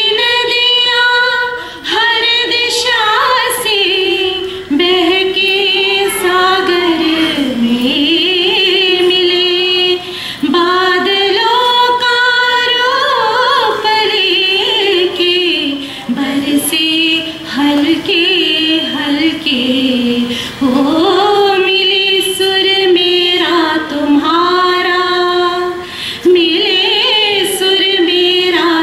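A group of children and adults singing a song together, led by a woman's voice amplified through a microphone.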